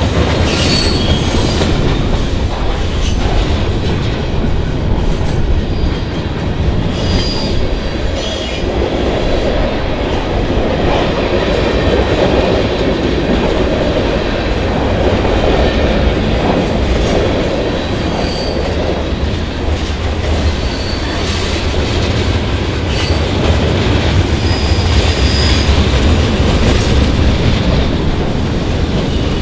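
Freight train cars rolling past, with continuous rumble and wheels clacking over the rails. Short high wheel squeals come every few seconds.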